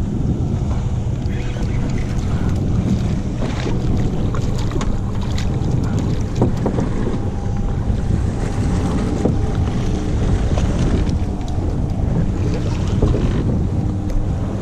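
Wind buffeting the microphone over a steady low hum from a fishing boat drifting at sea, with water lapping and a few small splashes and knocks as a fish is brought to the side of the boat.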